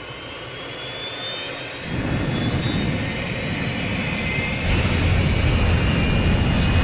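A machine tool running: a thin whine slowly rising in pitch over a rushing noise, with a low rumble coming in about two seconds in and growing louder near the five-second mark.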